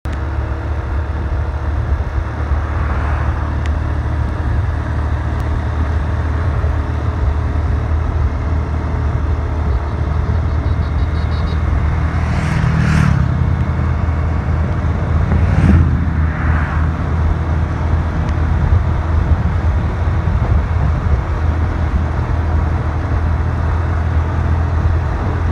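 Steady low rumble of wind and road noise from riding along the road, with motorcycles passing in the opposite lane about twelve and sixteen seconds in, each swelling and fading quickly.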